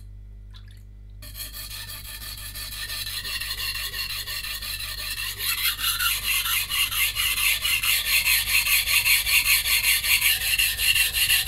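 VG10 santoku blade being stroked back and forth on a coarse 180-grit whetstone, a rhythmic rasp of steel on stone as the edge chips are ground out and the broken tip reshaped. After a brief quiet moment at the start the strokes come in, growing louder and settling at about four or five a second.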